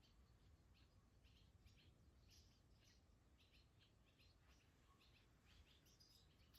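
Barn swallows twittering faintly: many short, high chirps in quick runs, over a low background rumble.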